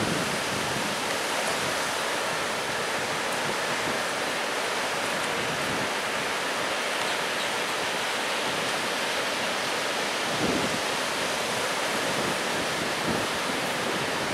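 Rough storm surf breaking continuously on the beach: a steady hiss of churning whitewater, with a slight surge about ten seconds in.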